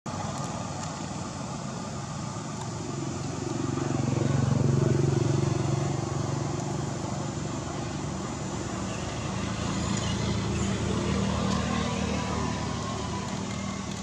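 A motor vehicle engine running steadily, growing louder about four seconds in and fading, then swelling again later.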